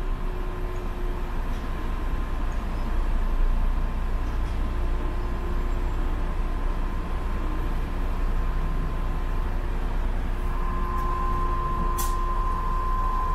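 Public transport vehicle riding, heard from inside: a steady low rumble with a steady whine that grows stronger about ten seconds in, and a brief sharp click about twelve seconds in.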